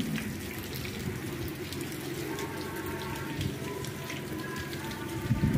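Steady rain falling on a paved street and tiled roofs, with scattered drop splashes.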